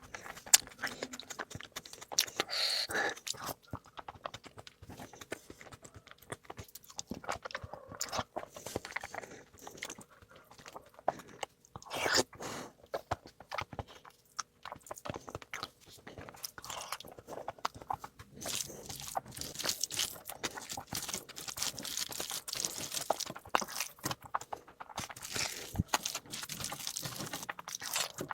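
Close-miked eating: a person chewing and crunching mouthfuls of food, with irregular wet smacks and crisp clicks, getting busier near the end.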